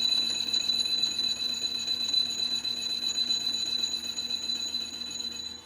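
Steady high-pitched whine of running workshop machinery over a rough, grinding undertone, dropping away briefly near the end.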